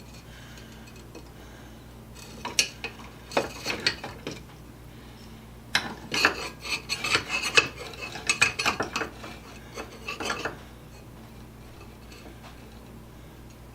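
Metal clinking and scraping as a steel plate is shifted and repositioned under a hand-operated drill press, in several short clusters with pauses between.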